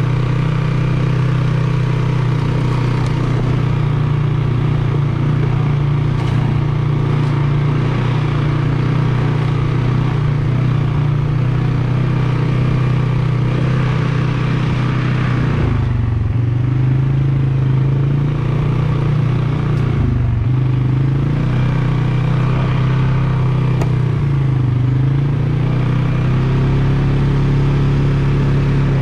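Polaris 570 off-road vehicle's engine running steadily at trail speed under light throttle, easing off briefly about halfway through and again a few seconds later before picking back up.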